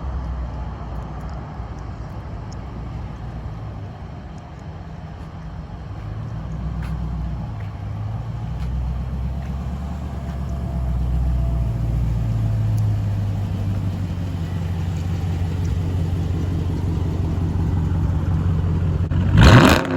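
Dodge Charger Scat Pack's 6.4-litre HEMI V8 running with a low rumble that slowly grows louder, then a sharp loud rev near the end whose pitch falls away as it settles.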